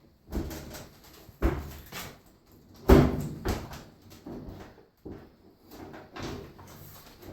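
Irregular knocks and clunks, about eight of them, the loudest about three seconds in: the washer's top panel and metal reinforcing brackets being handled and fitted during the lid-reinforcement recall repair.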